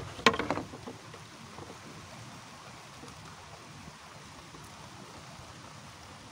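Steady outdoor wind-and-water noise over a pond. About a quarter second in there is one brief, sharp, pitched sound, the loudest thing heard, from an unidentified source.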